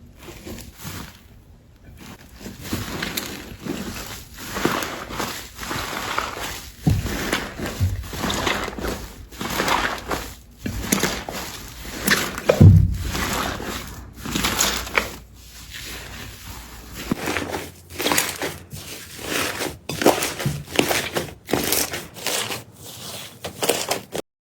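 Slime being squeezed and pressed by hand, giving irregular crackling and crinkling sounds that stop abruptly near the end.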